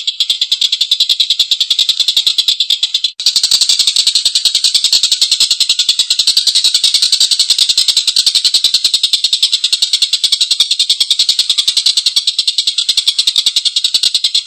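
Tengkek buto kingfisher giving its long, harsh laughing call: a very fast, rasping chatter of repeated notes. It breaks off for an instant about three seconds in and resumes a little louder.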